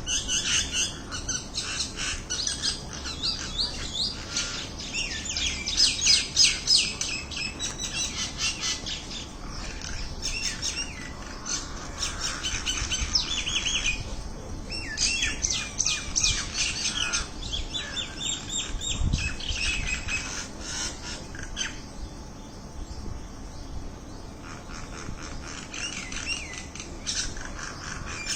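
A group of small birds chirping and twittering together, many short high calls overlapping. The calls thin out for a few seconds after the middle, then pick up again near the end.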